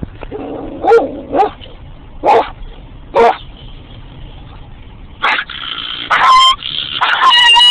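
A woman imitating a dog with her voice: five short barks spaced out over the first few seconds, then longer, drawn-out howls with a steady pitch near the end.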